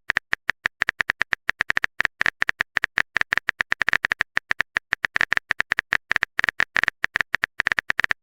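Typing sound effect: a rapid, uneven run of short, identical clicks, about eight a second.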